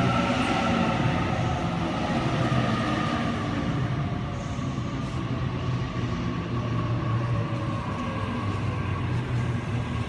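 Waratah (A set) electric train pulling in along the platform and slowing, its traction motors whining in tones that sag slowly lower over a steady low hum.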